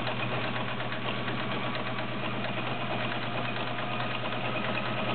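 Early-1970s all-metal Kenmore Model 1601 sewing machine running steadily at speed, its motor humming under a rapid, even ticking of needle strokes, sewing a zigzag stitch through fabric.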